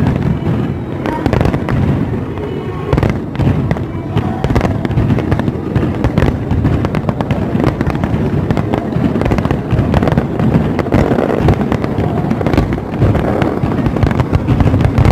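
Fireworks finale: a loud, dense barrage of bangs and crackles, burst after burst with no pause between them, over a continuous low rumble.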